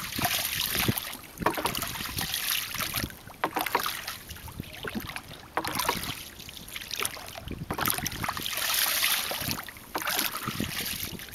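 Water splashing and rushing against a small boat's hull as it moves through shallow water, in irregular surges.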